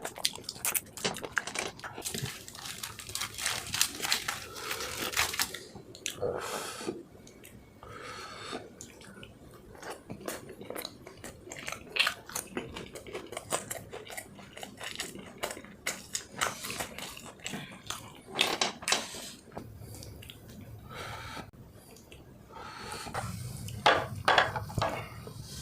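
Close-up mukbang eating: chewing, biting and lip-smacking on food, with many short wet clicks and crunches.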